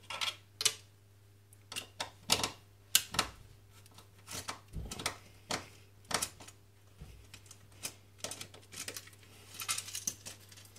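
Irregular plastic clicks, knocks and scrapes as an old heating programmer's wiring backplate is worked loose and pulled off the wall, busier near the end. A faint steady low hum runs underneath.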